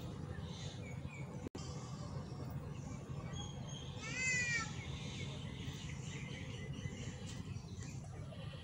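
A bird calls about four seconds in: a brief run of quick, rising-and-falling notes over steady low outdoor background noise. The sound drops out for an instant about a second and a half in.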